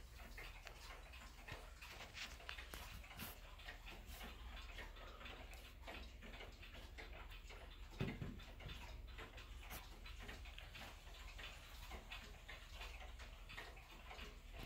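1930s Kienzle grandfather clock ticking faintly and steadily. A soft handling knock comes about eight seconds in.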